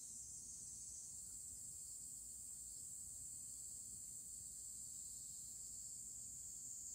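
Faint, steady high-pitched insect chorus, like crickets trilling without a break, over a low hum of room tone.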